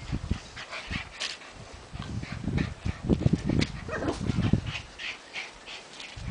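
White Puli puppies whimpering and yipping in short, scattered cries as they play.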